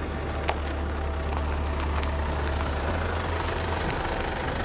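Mercedes-Benz Vito van driving slowly up and pulling in, its engine running with a steady low hum; a brief click about half a second in.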